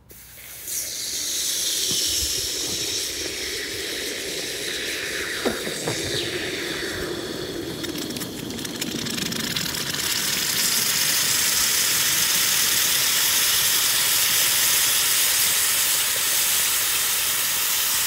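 Hot, freshly cast aluminum ingot hissing and sizzling as it is quenched in a block of ice, with steam hissing steadily. The hiss starts about half a second in, with a sharp crack about five seconds in, and grows louder and steadier from about ten seconds on.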